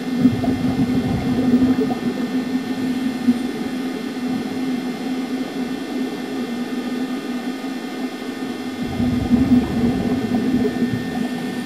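Underwater pool sound picked up by a camera in its housing: a steady hum over a hiss, with two spells of bubbling rumble from scuba divers' exhaled bubbles, one at the start and one about nine seconds in.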